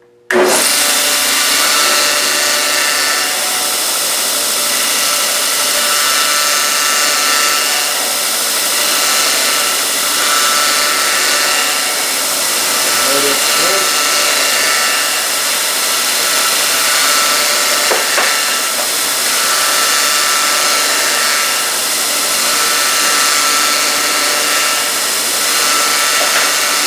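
Homemade belt grinder switched on about a third of a second in and running steadily with no load: the electric motor and sanding belt make a steady whir with a whine from the small idler wheels. The bearings in those small wheels are a little noisy, which the builder suspects are bad bearings.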